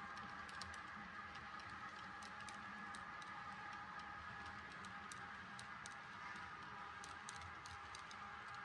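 Model railroad freight cars rolling along the track: a faint steady rolling whir with light, irregular clicks of the wheels on the rails.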